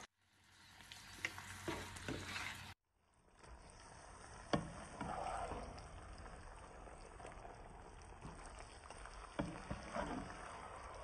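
Fried tofu fritters and sauce sizzling in a frying pan, with a few clicks of the spatula against the pan as they are stirred together. The sound drops out briefly near the start and again about three seconds in.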